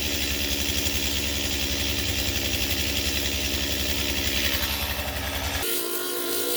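Small two-stroke chainsaw engine running at a steady low speed with an even pulsing. It cuts off abruptly near the end, and a few steady tones take over.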